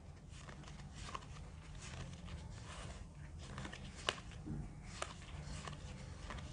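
Wingspan bird cards being handled and leafed through: faint, scattered clicks and flicks of card stock, over a low steady hum.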